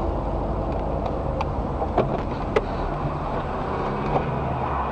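A car driving, heard from inside its cabin: a steady drone of engine and road noise, with a few short clicks or rattles about two seconds in.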